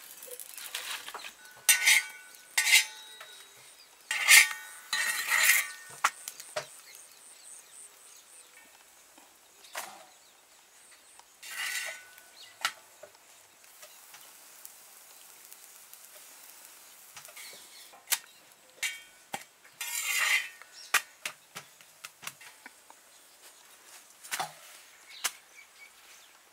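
A metal utensil scraping and clinking against an iron tawa as rotis are turned and pressed on it, in short irregular bursts, over a faint hiss of frying oil.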